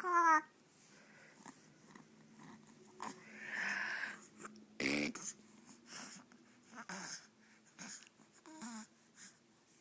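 Four-month-old baby making mouth and tongue noises: a short squeal falling in pitch at the start, then breathy sputters and wheezy sounds, with a sharper, louder one about five seconds in, separated by quiet gaps.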